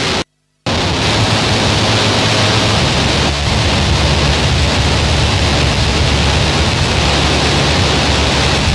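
Harsh noise music: a dense, distorted wall of electronic noise with a heavy low end. It drops out completely for a moment just after it begins, then runs on steadily.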